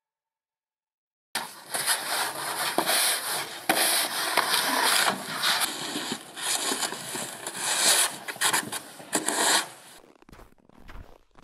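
Snow shovel scraping and pushing snow in quick repeated strokes, starting suddenly about a second in. Near the end it gives way to quieter crunching footsteps in snow.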